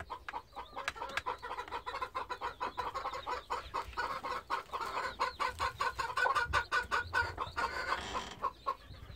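Mother hen clucking in quick, short repeated notes as she pecks at feed in a metal bowl, with sharp taps among the clucks.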